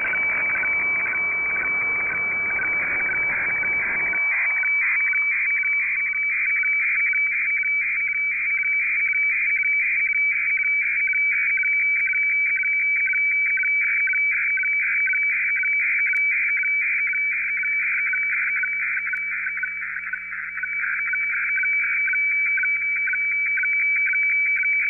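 HF weather radiofax signal in receiver audio: a steady high tone with a rapid, even warble of lower tones beneath it as the chart is scanned line by line. About four seconds in, the background hiss below it cuts off as the receive filter passband is narrowed, leaving only the fax tones.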